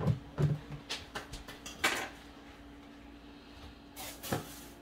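Kitchen clatter: scattered knocks and clicks of bowls and containers being handled, busiest in the first two seconds and sparser after, over a steady faint hum.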